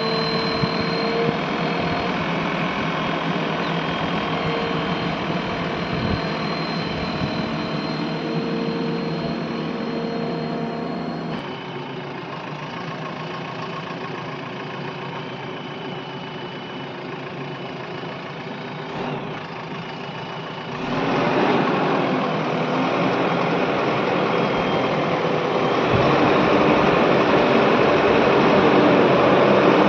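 Diesel engine of a JCB 3DX backhoe loader running steadily. It drops abruptly about a third of the way in and comes back louder about two-thirds in.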